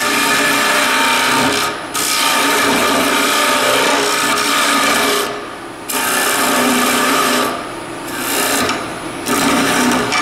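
Carbide-tipped 90-degree detailer hollowing the inside of a bowl spinning on a wood lathe: a steady hissing scrape of the cutter shaving wood, cutting smoothly without chatter. It breaks off briefly about two seconds in, again around five and a half seconds, and goes quieter for a moment around eight seconds.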